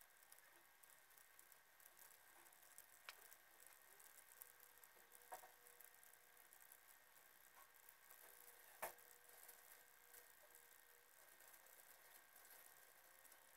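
Near silence: faint hiss with a few faint clicks, the clearest about nine seconds in.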